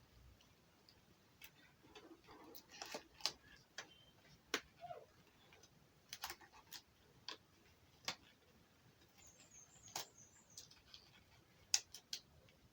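Disposable medical gloves being pulled on by hand: faint irregular snaps and clicks of the glove material, with light rustling.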